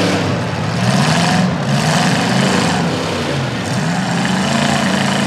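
Demolition derby truck engines revving hard and easing off, their pitch rising and falling several times over a steady wash of noise, as the trucks push against each other.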